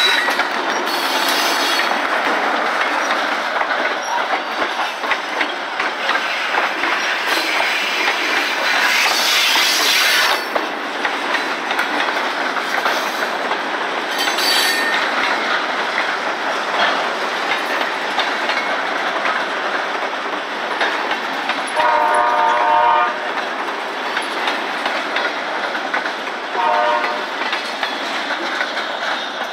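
A GE B23-7 diesel locomotive passes close by at the start, followed by covered hopper cars rolling past with steady wheel clatter. About two-thirds of the way through, a short horn blast sounds, with a briefer one a few seconds later.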